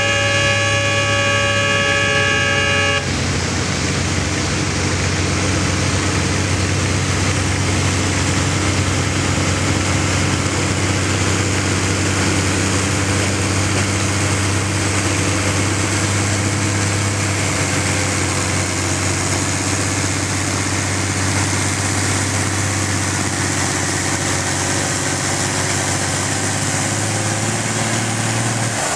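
A horn sounds several tones together and stops about three seconds in. Under it and after it, a John Deere farm tractor's engine runs steadily under heavy load, dragging a weight-transfer sled down a tractor-pull track.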